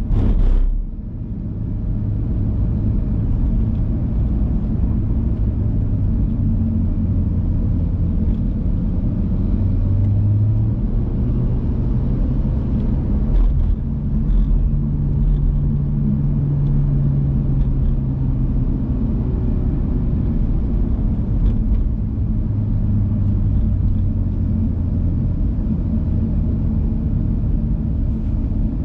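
BMW F87 M2's turbocharged straight-six running steadily while the car is driven, its low note shifting in pitch as the revs rise and fall. It eases off briefly about a second in.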